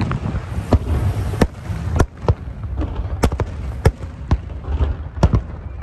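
Aerial fireworks shells bursting: an irregular series of sharp bangs, about two a second, over a continuous low rumble.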